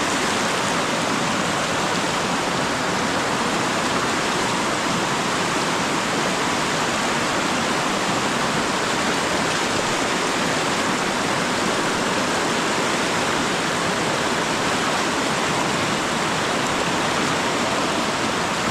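River water rushing steadily, an unbroken noise of fast-flowing water.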